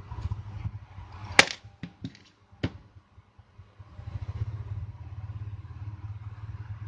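A few sharp clicks and taps from handling the opened phone and its small charging-port board, the loudest a little over a second in, over a steady low rumble.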